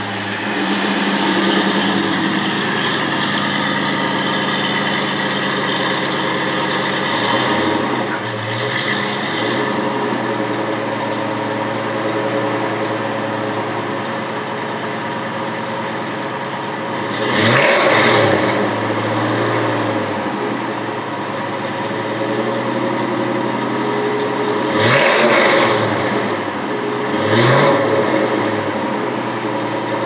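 1963 Ford Falcon Sprint's 5.0 V8 running, driven slowly at first and then idling steadily. The throttle is blipped sharply three times: about halfway through and twice near the end.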